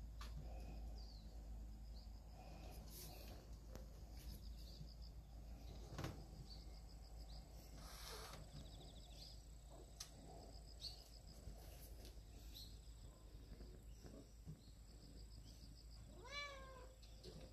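A young kitten meows once near the end, a short call that rises then falls in pitch, over faint room noise. A single sharp knock comes about six seconds in.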